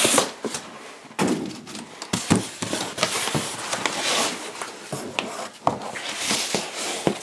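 Large corrugated cardboard box being pulled from a stack and handled: scraping and rustling of cardboard with several dull thunks as it knocks against other boxes and the floor.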